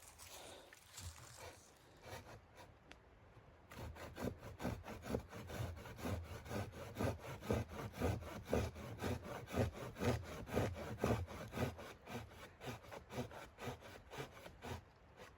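Rhythmic back-and-forth strokes of a saw cutting wood, about three or four strokes a second, starting about four seconds in and stopping shortly before the end.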